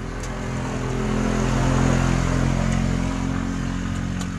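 A motor vehicle engine passing by, growing louder to a peak about two seconds in, then easing off slightly.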